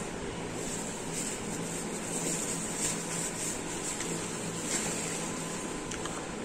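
Steady low hum and hiss, with a few faint rustles and light taps as a fabric backpack is handled and packed.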